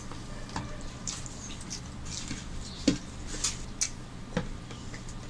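Eating by hand: fingers scraping rice and curry across melamine plates, with soft wet smacks and chewing. Scattered small clicks, the sharpest about three seconds in and again a second and a half later.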